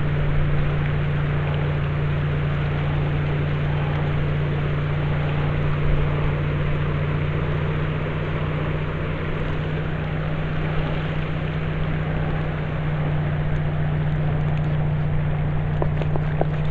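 Boat motor running steadily with a constant low hum, over a wash of water and wind noise; a few light ticks come near the end.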